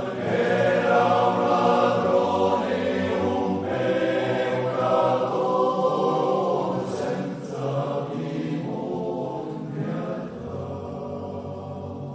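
Male voice choir singing, holding long notes; the singing grows softer over the last few seconds.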